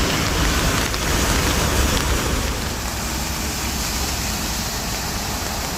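Steady rush of water with a low rumble, from lorries and other traffic driving through a flooded road.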